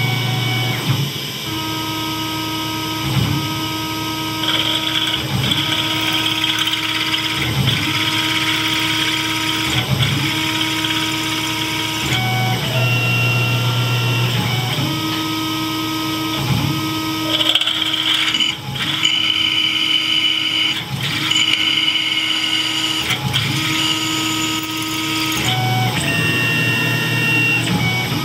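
Tormach PCNC 1100 CNC mill running a drilling program: the spindle and axis motors whine in steady tones that change in a repeating cycle about every two seconds as it drills one hole after another. A lower hum comes in briefly at the start, about halfway and near the end.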